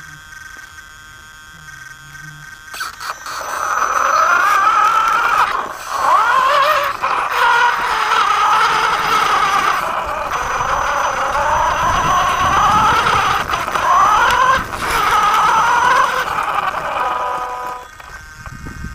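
The RC inspection rover's electric drive motor and gears whining, the pitch rising and falling as the throttle changes, with scraping from the knobbly tyres over gravel. It starts about three seconds in and stops shortly before the end.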